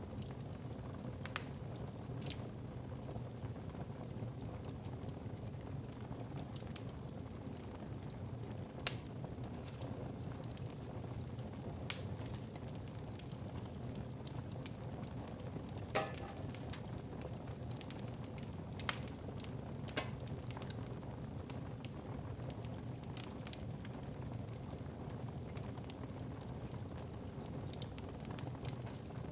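Wood fire crackling in a fireplace: a steady low rush with scattered, irregular sharp pops, a few louder ones around the middle.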